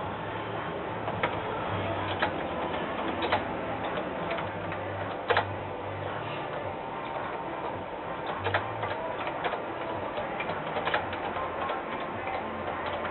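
Keys on the Apple II Europlus keyboard clicking one at a time at an uneven pace as a program is typed in, over a low steady hum.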